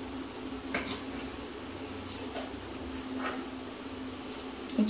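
Quiet kitchen background while mustard oil heats in a non-stick pan on a gas burner: a steady low hum with a few faint ticks.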